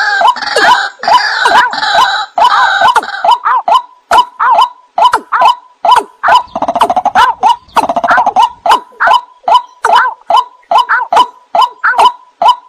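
Overlapping calls of watercock, white-breasted waterhen and greater painted-snipe: a long series of loud, short, sharp notes repeated about two to three times a second. The first few seconds are busier, with several calls overlapping, and a denser run of calls comes around the middle.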